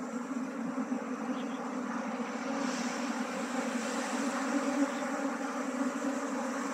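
Mass of honeybees buzzing in a steady droning hum that slowly grows louder, from a colony being shaken by hand into a wooden box hive.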